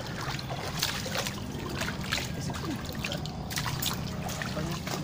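Shallow muddy pond water trickling and splashing as hands scoop and stir through it, with many small scattered splashes.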